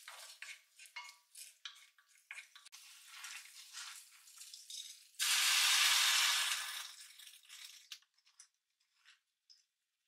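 Wooden spoon stirring and scraping abalone innards frying in sesame oil in a Staub cast-iron pot, with light sizzling. About five seconds in, soaked rice is tipped in from a colander and lands in the hot oil with a loud rush of sizzling that lasts about two seconds and then dies away.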